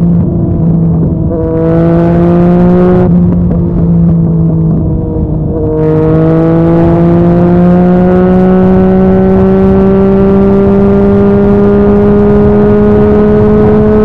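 Yamaha MT-09's three-cylinder engine through a Yoshimura R55 slip-on exhaust, under way. It pulls with the pitch climbing, eases off briefly about three seconds in, then pulls again about six seconds in with a long, slow rise in pitch.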